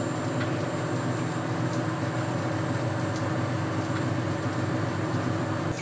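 Boxford lathe running steadily under its inverter-driven variable-speed motor, the spindle turning at about 350 to 370 rpm, an even motor and drive hum with a thin high-pitched tone over it.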